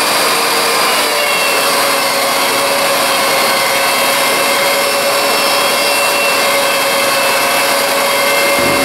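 Benchtop thickness planer fitted with a Shelix helical cutterhead running steadily with a whine while short wood pieces are fed through one after another, surfacing their faces.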